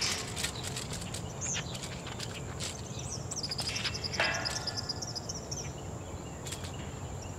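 Outdoor ambience of a steady high insect whine, with a bird's rapid chirping trill from about three seconds in until nearly six, plus scattered light clicks and a brief louder rustle around the middle.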